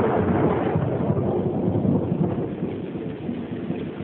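Thunder rumbling after a lightning strike, a deep rolling rumble that slowly fades.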